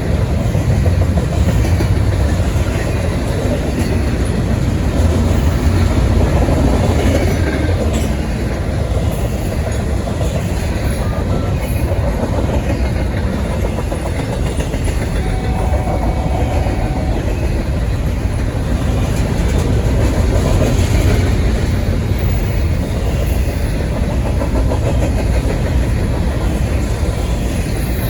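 Long intermodal freight train's well cars rolling past, a steady rumble of steel wheels on the rails.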